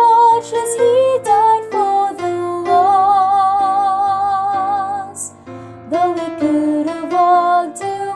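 A female soprano voice sings a melody over piano accompaniment, holding one long note with vibrato in the middle.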